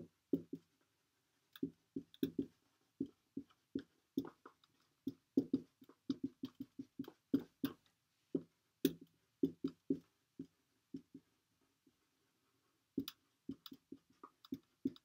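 Dry-erase marker writing on a whiteboard: a quick, irregular run of short strokes, with a pause of a second or so near the end.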